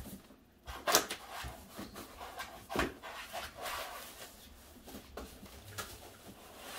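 Cardboard box sides being pulled and flexed away from a foam-packed mirror: scattered rustles and scrapes with a few sharper knocks, the loudest about 1 second and 3 seconds in.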